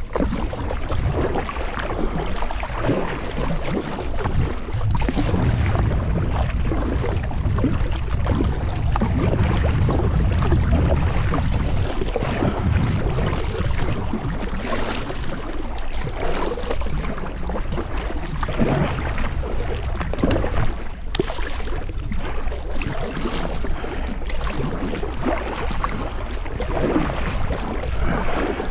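Kayak paddle strokes dipping and splashing in the water, with wind rumbling on the head-mounted camera's microphone, heaviest in the first half.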